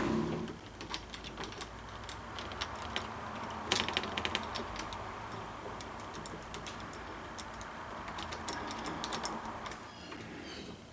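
Irregular small clicks and taps of a Kwikset lever door handle and its latch hardware being handled and fitted into a door, with a cluster of quick clicks a little under four seconds in. A steady hiss runs underneath and stops near the end.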